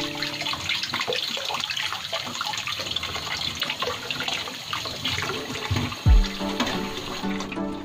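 Kitchen tap running, the stream splashing into a plastic container in a stainless steel sink while hands rub and rinse small pieces under it. Background music comes back in about six seconds in, starting with a loud deep bass hit.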